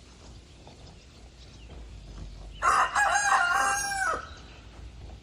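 A rooster crowing once, a single call of about a second and a half that drops in pitch at the end.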